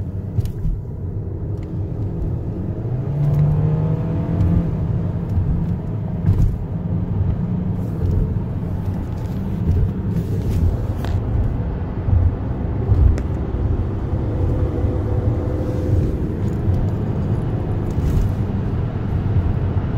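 Car driving, with a steady low road rumble and drone: the noise being checked for a bad wheel bearing. A pitched tone rises briefly a few seconds in.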